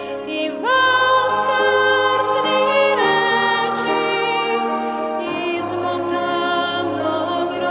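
Christian worship song sung in Serbian: a voice slides up into long held notes over a soft, sustained backing.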